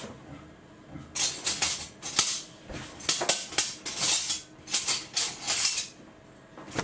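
A packet of ingredients being handled: a run of irregular rustling bursts for about five seconds, starting about a second in.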